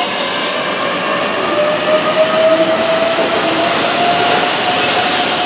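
Keihan 7000 series electric train running past close by along the platform: steady rolling rail noise with a high, steady whine in it.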